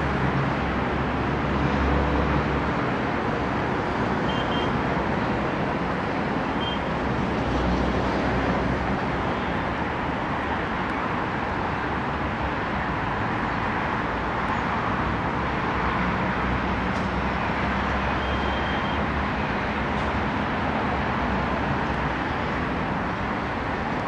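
Steady din of city traffic: a constant hum of engines and tyres with a low rumble that swells now and then. A few faint, short high beeps stand out above it.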